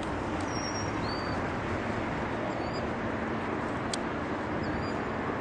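Steady rumble and hiss of a freight train rolling past, with a few short faint high chirps over it.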